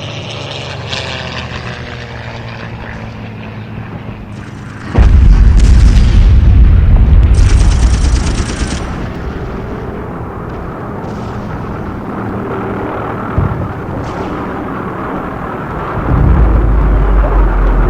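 Air raid sound effect: aircraft engines drone steadily, then a heavy bomb explosion hits about five seconds in and rumbles on with crackling for a few seconds. After a lower rumble and a single thud, a second loud explosion comes near the end.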